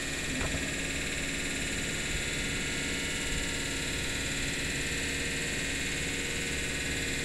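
Steady hum and hiss of a stationary Class 317 electric multiple unit, its onboard equipment running while it stands at the platform.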